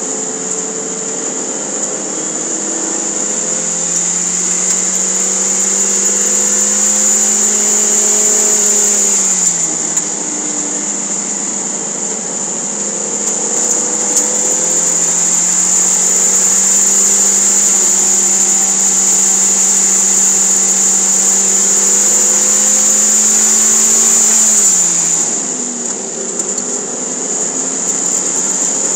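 Toyota MR2 Spyder's 1.8-litre four-cylinder engine heard from inside the cabin on track, its note climbing steadily under throttle and then falling quickly, twice. A steady high-pitched whine runs underneath.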